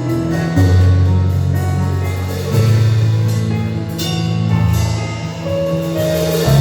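Instrumental band music with a drum kit, low bass notes shifting every second or two, and held chords above.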